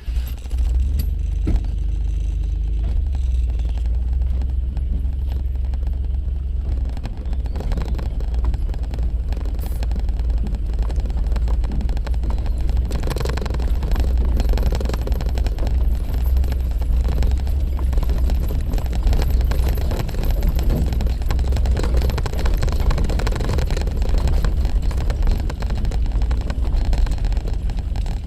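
Suzuki Jimny running, with steady low engine and road noise throughout.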